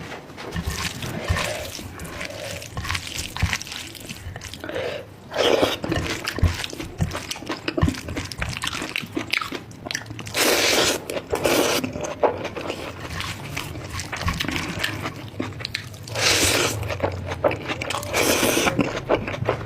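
Close-miked eating: a person chewing and crunching on spicy goat marrow bones with rice, in a run of quick crackling clicks. Several louder, rougher stretches of about a second each stand out, the longest a little past halfway.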